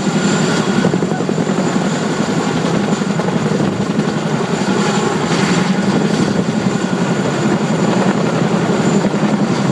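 Helicopter running steadily, its rotor giving a fast, even chop with a thin high whine above it.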